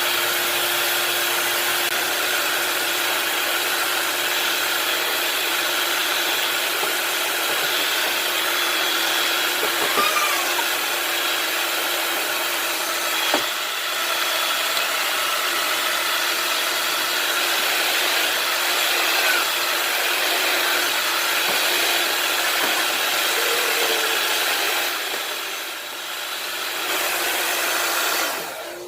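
Ionic hair dryer running steadily, a loud rush of blown air. It dips briefly near the end, then switches off.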